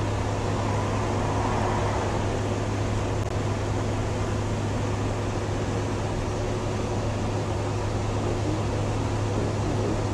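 Steady machine hum with an even hiss, unchanging throughout, like a running fan or air-conditioning unit.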